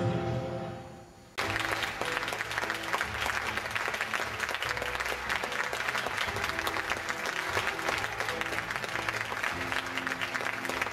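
Music fading out, then, after a sudden jump about a second and a half in, an audience clapping steadily with faint music underneath.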